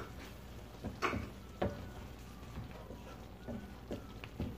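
Wooden spatula stirring chicken, meatballs and tomato in a frying pan, knocking and scraping against the pan in irregular strokes, the loudest about a second in.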